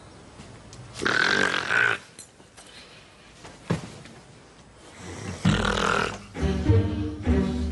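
A woman snoring twice, very loudly, each snore about a second long: the first about a second in, the second about five seconds in. Plucked low strings of comic film music come in near the end.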